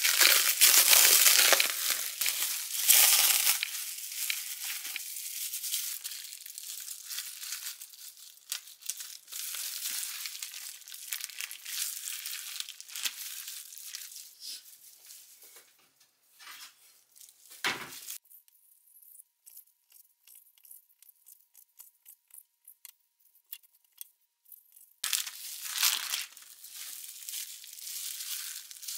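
Plastic cling wrap crinkling and tearing as it is peeled off raw beef short ribs, loudest in the first few seconds and fading after. A single dull thump a little past halfway, then soft handling clicks and another short stretch of plastic crinkling near the end.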